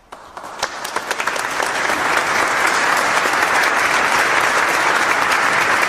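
Crowd applause, many hands clapping: it starts from a few scattered claps and swells to a full, steady clapping within about two seconds.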